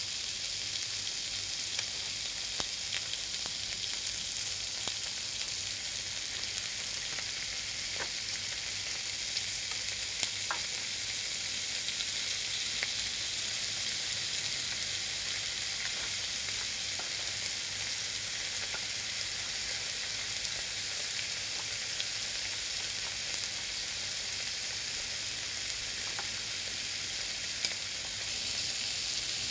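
Thin slices of raw pork sizzling steadily on the hot ridged plate of an electric grill pan, with occasional small pops of spitting fat.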